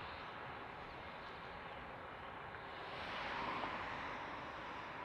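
Airbus A319's IAE V2500 turbofans at low thrust as the airliner taxis, a steady rushing hiss that swells briefly a little past halfway.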